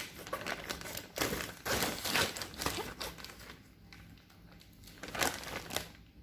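Scissors cutting open a package: a run of irregular snips and crinkling of the wrapping, quieter for a stretch in the second half.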